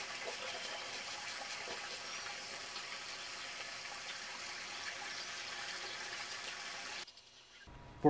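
Steady running, trickling water, cutting off abruptly about seven seconds in.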